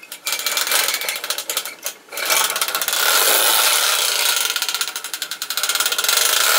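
Clockwork spring motor of a Mettoy tinplate toy train running, a fast whirring rattle of gears against the tin track base, with a brief break about two seconds in.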